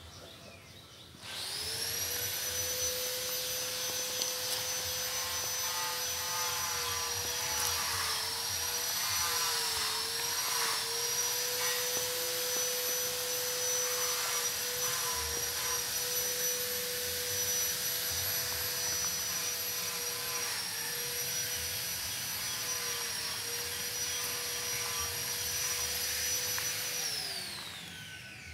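A high-speed electric motor spins up about a second in, runs with a steady high whine that dips in pitch now and then as if under load, and winds down near the end.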